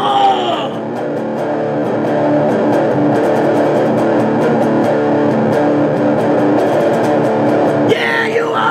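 Electric guitar playing an instrumental passage of a metal song, with a man's sung line ending about a second in and his singing coming back near the end.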